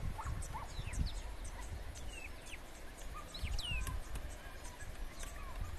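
Several birds chirping and calling, with short whistled notes, several sliding downward, scattered through, over a steady low rumble.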